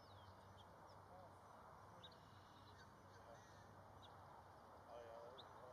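Quiet outdoor ambience: faint distant voices, strongest near the end, with a few brief high bird chirps over a steady low hum.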